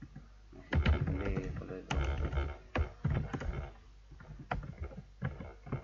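Computer keyboard typing: a quick run of keystrokes lasting a few seconds, then a few scattered single key clicks near the end.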